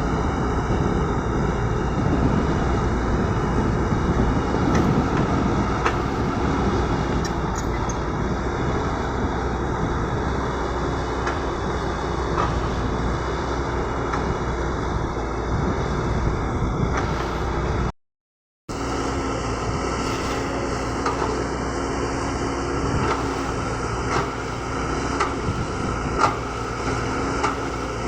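Caterpillar 120B excavator's diesel engine running steadily under load while it works, with a few sharp knocks near the end. The sound cuts out completely for under a second about two-thirds of the way through.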